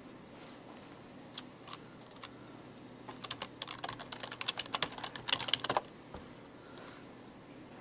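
Typing on a computer keyboard: a few single keystrokes, then a quick run of key clicks lasting about three seconds.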